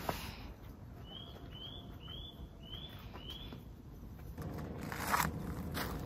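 A bird calling a series of five short, identical high chirps about half a second apart. About four seconds in, crunching and rustling footsteps start.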